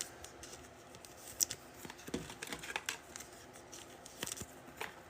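Faint, scattered clicks and light rustling of trading cards and their foil packaging being handled, with a few sharper ticks among them.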